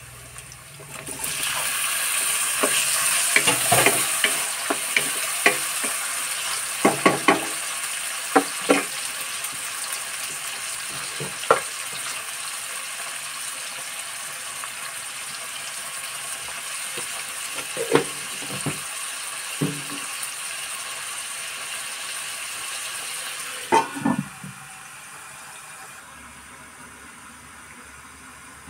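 Chopped tomatoes tipped into hot oil in a metal kadai, setting off a loud, steady sizzle, with scattered clinks of a spoon against the pan. Near the end a metal lid clanks onto the kadai and the sizzle drops to a quieter, muffled hiss.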